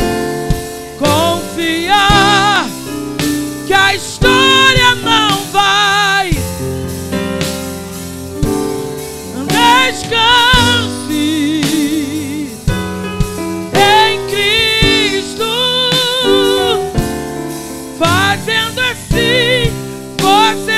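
A woman singing a gospel worship song with a live band of keyboard, electric guitar and drums. Her held notes carry a strong, wide vibrato, sung in phrases with short breaks between them.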